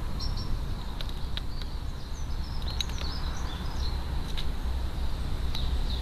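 Low, steady rumble of wind on a trail camera's microphone, with faint chirps of small birds in the distance around the middle and a few light taps.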